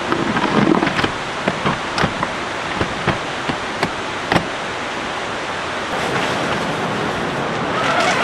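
Rain falling steadily, with heavy drops striking sharply and irregularly, about a dozen in the first four seconds; the steady rush grows a little louder near the end.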